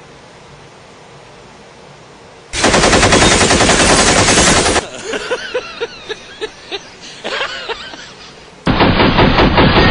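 Gunfire: after a couple of seconds of faint hiss, a burst of rapid automatic fire lasting about two seconds, then scattered single shots, then another long burst of rapid automatic fire near the end.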